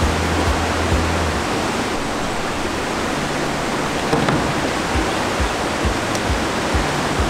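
Background music with a steady beat and a bass line, over a steady rushing noise.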